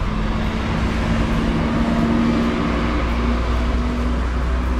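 A steady low mechanical rumble with a held hum-like tone through most of it.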